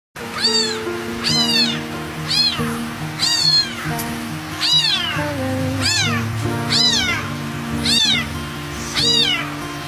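Cat meows repeated at an even pace of about one a second, over background music with steady held notes.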